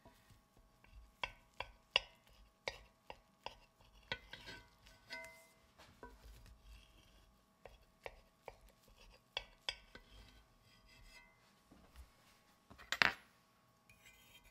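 Knife cutting through a pancake in a cast iron skillet, its blade clicking and scraping against the iron pan in irregular short strokes, with one louder scrape near the end.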